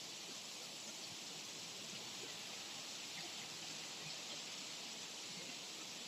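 Light rain falling steadily: a soft, even hiss with a few faint scattered drop ticks.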